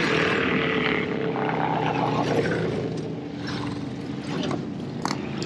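Motorcycles riding past in a group, their engines running steadily.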